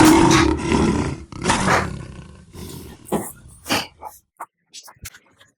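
Bajaj Pulsar NS200's single-cylinder engine revved hard twice, then falling back and cutting out about four seconds in.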